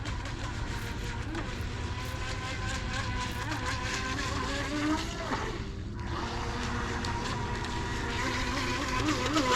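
Bezgar TX125 RC boat's small brushed electric motor whining as the boat runs, its pitch rising and falling with the throttle over a steady hiss, growing louder near the end.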